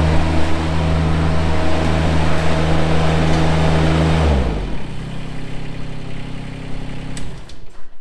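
Cast compact pivot-steer loader's 23-horsepower engine running at high revs as it drives in, then dropping to idle about four and a half seconds in. The idle stops about seven seconds in as the engine is shut off.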